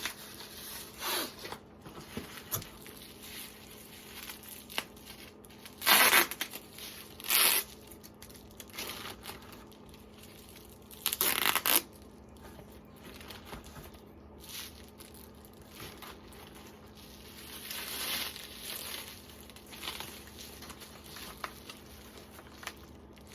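Plastic wrapping being crinkled and torn open from AR pistol kit parts, with sharp loud rips about six seconds in and again around eleven seconds, and softer rustling in between.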